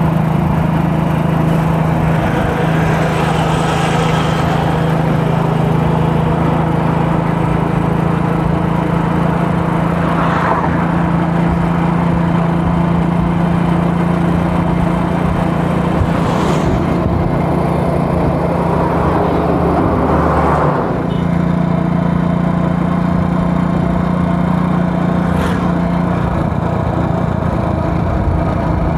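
A motor vehicle's engine running steadily at road speed, heard from on board with road and wind noise, dipping briefly about two-thirds of the way through.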